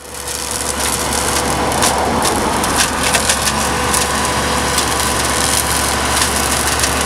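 Tractor-mounted hedge-cutter flail head spinning and shredding hedge branches, with many sharp cracks of splintering wood over the steady running of a Fendt tractor's engine. The sound fades in over the first half second.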